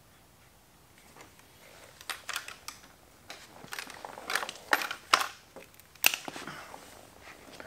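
Irregular clicks and short plastic rattles of a taillight and license-plate bracket and its wiring connectors being handled, with a few sharp louder clicks past the middle.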